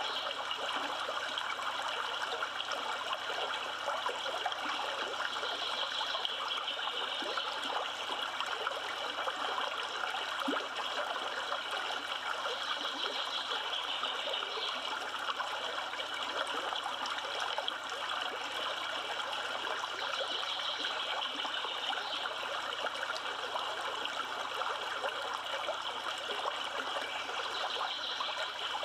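A river flowing: a steady, unbroken rush of moving water.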